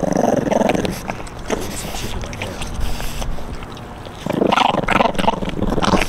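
French Bulldog puppies growling while they chew a whole raw chicken, one growl at the start and a longer one from about four seconds in, with scattered clicks of chewing between them.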